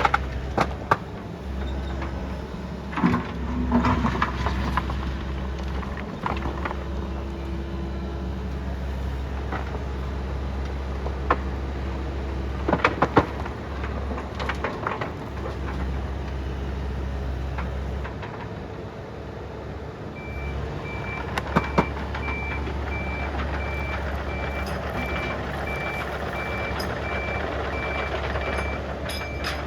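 Heavy machine's engine running with a steady low drone, with scattered sharp clanks of metal. About two-thirds of the way in, a reversing alarm starts beeping at an even pace.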